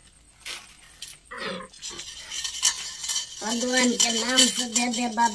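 Steel plate clattering and clinking in quick, irregular strokes. About three and a half seconds in, a sustained, wavering singing or chanting voice joins it.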